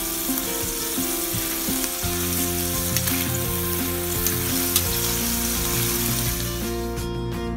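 Diced food sizzling in hot fat in a cast-iron skillet while a slotted metal spatula stirs and turns it, with a couple of sharp clicks from the spatula. The sizzle stops near the end.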